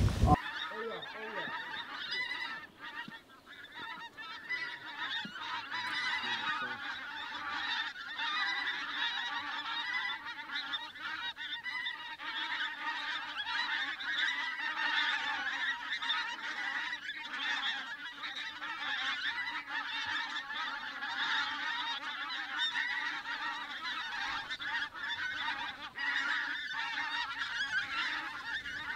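A large flock of pink-footed geese calling overhead: a dense, continuous chorus of many overlapping honking calls, briefly thinner a few seconds in.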